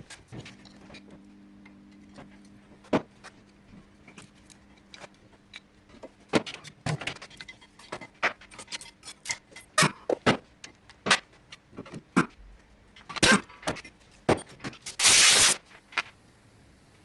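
Metal tools and brake parts clinking and knocking in scattered sharp clicks, over a faint low hum for the first few seconds. A loud half-second burst of hiss comes about fifteen seconds in.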